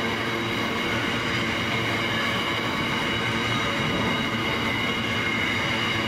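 Empty AHAY grain hopper wagons rolling past close by: a steady rumble of steel wheels on rail, with constant high ringing tones over it.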